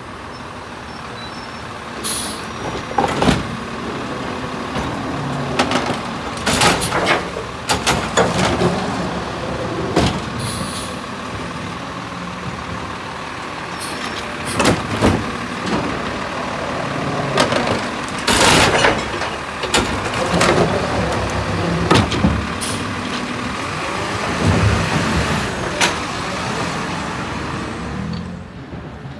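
Crane Carrier (CCC) automated side-loader garbage truck running while its hydraulic arm grabs and empties recycling carts: a steady engine and hydraulic hum broken by repeated clanks and bangs of carts and arm against the hopper, with a short hiss of air about two seconds in.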